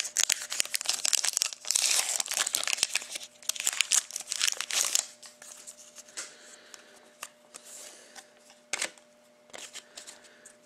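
A hockey card pack's wrapper being torn open and crinkled by hand for about five seconds, followed by quieter rustling and small clicks as the cards are handled.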